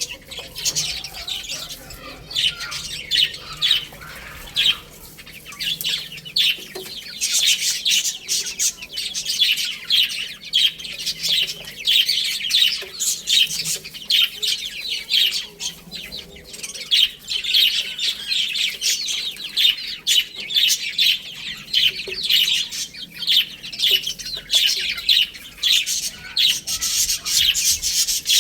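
A group of baby chicks peeping continuously, many short, high chirps overlapping with each other.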